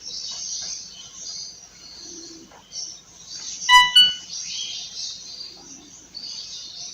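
Two short electronic beeps from a Samsung B310 phone under test, close together almost four seconds in, the second higher-pitched than the first. A steady high-pitched chirping runs in the background.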